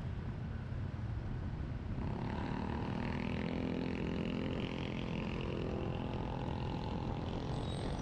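Motorcycle riding in traffic: the Yamaha XT250 Serow's single-cylinder engine running under a low rumble of wind and road noise. About two seconds in, a clearer engine note comes up and a higher whine rises in pitch, as under acceleration.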